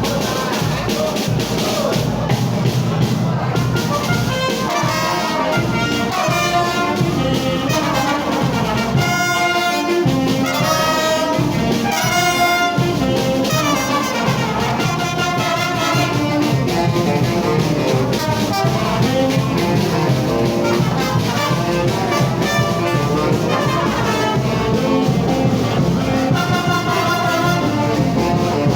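Brass orchestra playing, with trumpets and trombones carrying the music at a steady, loud level.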